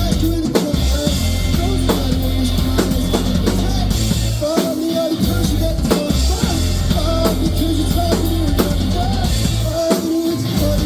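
Live indie-pop band playing an instrumental passage: full drum kit with kick and snare hits over sustained bass and guitar, heard through a concert venue's PA.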